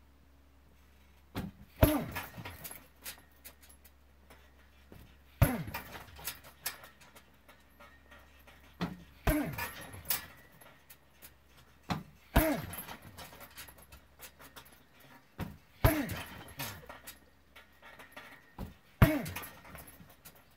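Kicks thudding into a hanging heavy bag, six hits about three and a half seconds apart, each followed by a short falling grunt and the bag's chain rattling.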